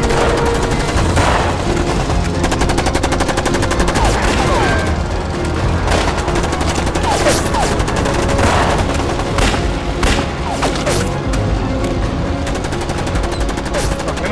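Volleys of film gunfire from rifles and a machine gun, with a fast, even string of automatic shots about five seconds in, over a steady low rumble.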